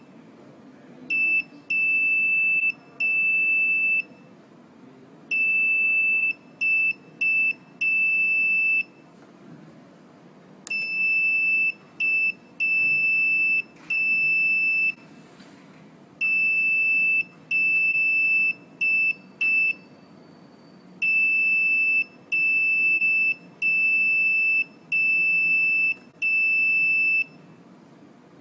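Buzzer on a Nuvoton NUC140 learning board sounding Morse code: a single high-pitched tone keyed into short dots and long dashes, one character after another, with longer gaps between characters. It spells Y (dash-dot-dash-dash), then Z (dash-dash-dot-dot), then 0 as five long dashes near the end.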